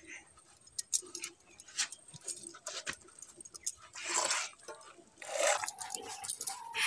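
Milk squirting by hand from a cow's teats into a plastic bucket in quick irregular jets. Two louder noisy bursts come about four and five and a half seconds in, the second followed by a brief held tone.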